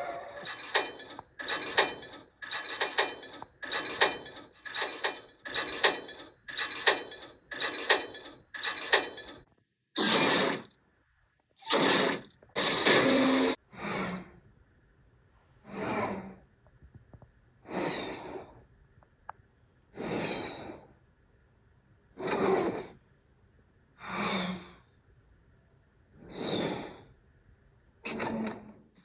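A person breathing hard: quick panting breaths in rapid succession, then slowing to longer, deeper breaths about two seconds apart.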